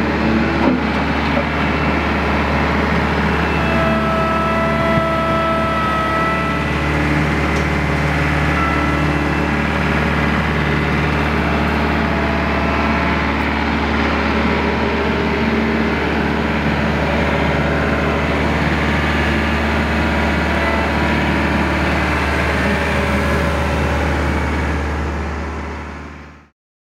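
RK55 compact tractor's diesel engine running steadily as the tractor works with its front loader, fading out near the end.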